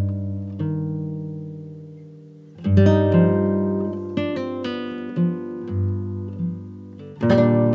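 Background music: guitar chords strummed and left to ring out, with a fresh strum about three seconds in and another near the end.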